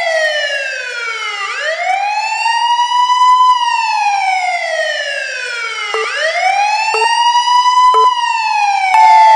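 Police car siren wailing, its pitch sliding slowly down and then back up in long cycles of about four seconds. A brief steady tone sounds near the end.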